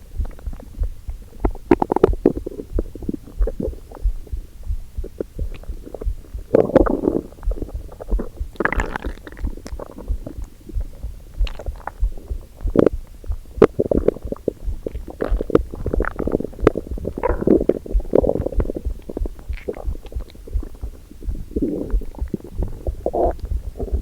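Hungry, empty human stomach gurgling and rumbling in irregular bouts every second or two.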